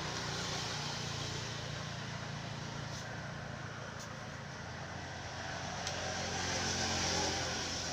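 Steady background hum and hiss with a few faint clicks; the hiss swells for a second or so about six seconds in.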